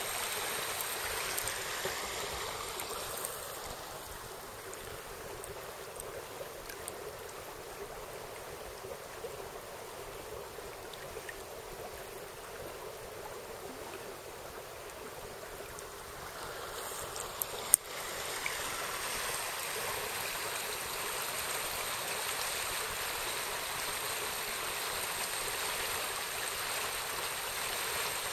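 Water of a small burn rushing and burbling over its stony bed. It is softer through the middle stretch and fuller again later on, with a single sharp click about two-thirds of the way through.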